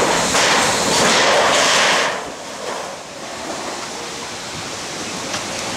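Hurricane wind and rain rushing, loud for about two seconds, then easing to a steadier, quieter rush.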